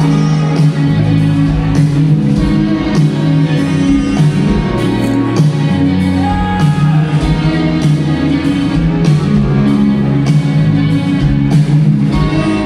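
Rock band playing live with drums, bass, electric guitars and keyboard at a steady beat, heard from the audience.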